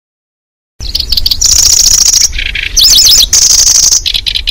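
Recorded song of a kecici belalang (lanceolated warbler) played as a bird lure, starting abruptly about a second in. High, rapid buzzing trills alternate with bursts of quick up-and-down chirping notes, over a low steady hum.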